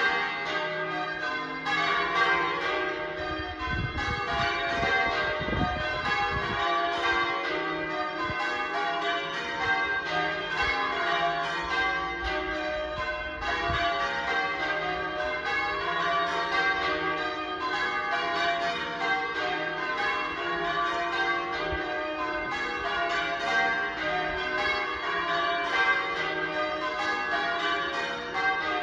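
Church bells ringing, a steady run of overlapping strikes in the manner of English change ringing.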